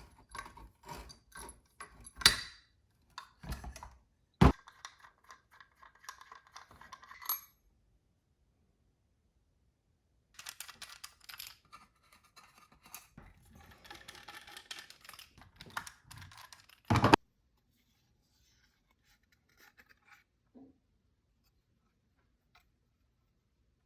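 Small metal parts being handled: a quick run of clicks and clinks, sharp knocks about two, four and a half and seventeen seconds in, and stretches of scraping and rubbing between them, then near silence for the last several seconds.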